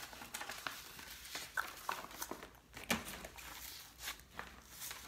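Paper documents and envelopes rustling and crinkling as they are handled and sorted, with scattered light taps and clicks; the sharpest click comes about three seconds in.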